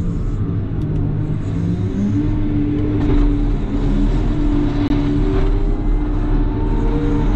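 CAT loader's diesel engine running under load, a deep steady rumble with its pitch shifting up and down as it works; the low rumble grows heavier about three seconds in.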